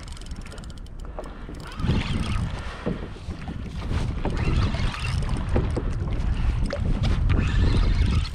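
Wind buffeting the microphone over water lapping against a kayak hull, the rumble growing louder about two seconds in.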